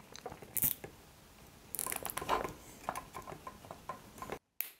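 Plastic parts of a 3D-printed receiver housing handled and pressed together as a plate is squeezed into place: scattered clicks and rustling, busiest about two seconds in, cutting off suddenly near the end.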